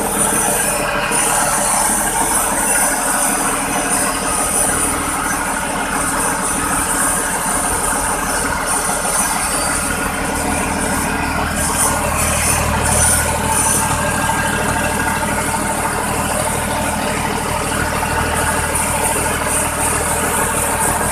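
Cummins KTA19 inline-six turbocharged diesel running steadily on its first start after an overhaul, the deep rumble growing stronger about halfway through.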